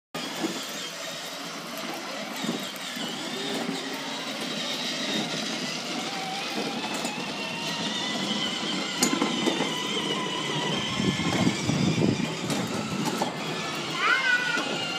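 A 12 V electric kids' ride-on BMW X5 toy car and a plastic ride-on toy motorbike rolling over paving slabs: hard plastic wheels rattling, with a steady high whine from the car's electric motor and gearbox.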